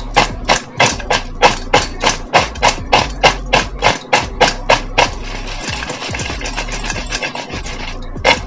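Crisp fried potato cubes tossed in a stainless steel bowl to coat them with chilli powder and salt: a rhythmic clatter of the pieces against the metal, about four strokes a second. About five seconds in it turns into a continuous rattle, and separate strokes come back near the end.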